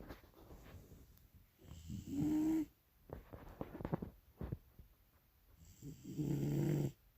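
Bulldog snoring in its sleep: two loud buzzing snores, each about a second long and about four seconds apart, with quieter breaths and small clicks between.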